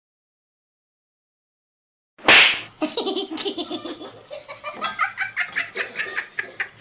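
Silence for about two seconds, then a sudden loud burst and a run of rapid, pulsing laughter.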